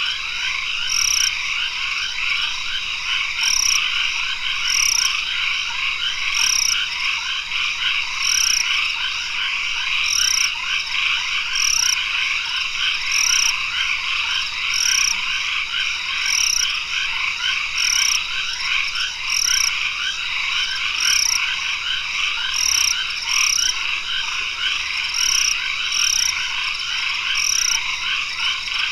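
Tropical forest at dusk: a dense chorus of many frogs calling continuously, with a steady high tone above it and a short high call repeating about once a second.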